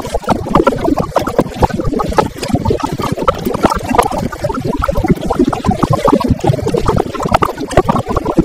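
Heavy rain and road spray spattering on a GoPro action camera on a motorcycle at highway speed: a loud, dense, irregular crackling patter.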